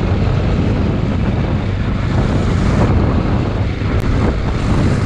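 Wind rushing over the microphone of a moving Bajaj Pulsar NS200, with its single-cylinder engine running steadily underneath.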